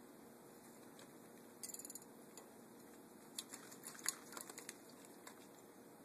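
Faint steady room hum with scattered light clicks and taps: a quick rattle of small ticks about one and a half seconds in, then a cluster of sharper taps around the middle, the loudest about four seconds in.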